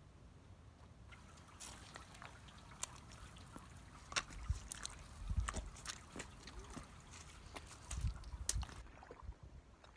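Footsteps squelching and crunching over wet mud and loose stones: irregular wet clicks and splashes starting about a second in, with a few low thumps.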